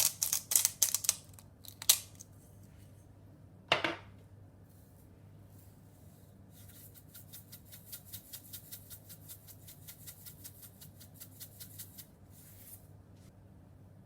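Kitchen food-preparation sounds: a cluster of sharp clicks at the start and a single knock near four seconds in, then a rapid, even run of light clicks lasting about five seconds.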